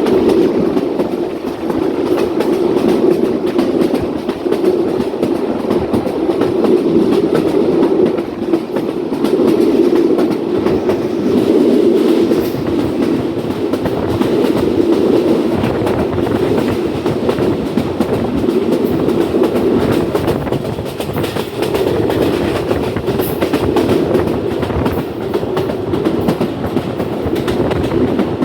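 Rangpur Express passenger train running along the track: a steady, loud rumble of wheels on rail with a clickety-clack that swells and fades every couple of seconds.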